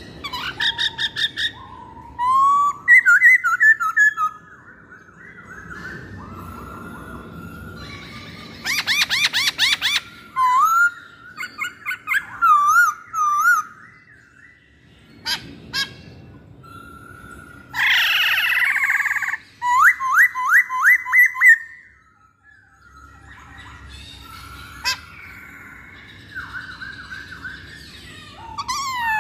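Poksay Hongkong (black-throated laughingthrush) singing a long, varied song. It mixes clear whistles that glide up and down with fast trills and quick runs of repeated notes, broken by short pauses.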